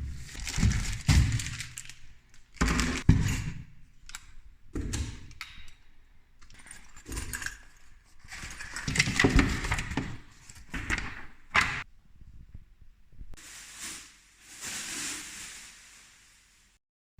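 Irregular handling noises: clattering and knocks in separate bursts, with no engine running.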